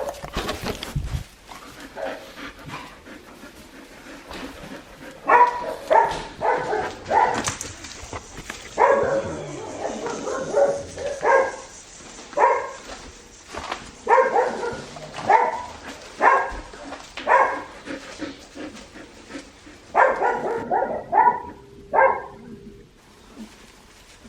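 Young Australian Shepherd puppies yipping and barking in repeated short clusters.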